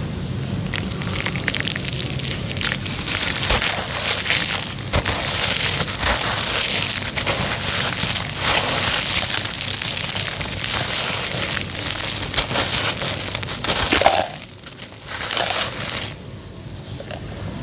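Homemade cement being crushed and crumbled: a dense, gritty crackle of many small breaks, easing off into softer, sparser crunches in the last few seconds.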